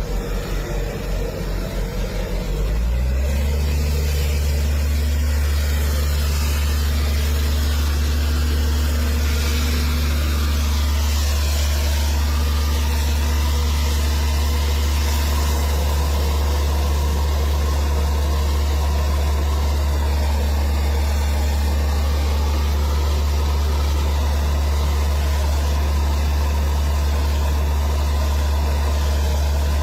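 A large engine idling with a low, steady hum. It shifts to a louder, steadier note about three seconds in and holds it.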